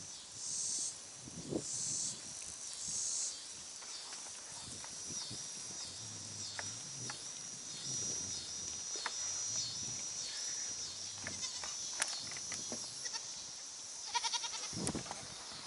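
Goats bleating now and then over a steady high-pitched buzz, with a few clicks and a brief rattle near the end.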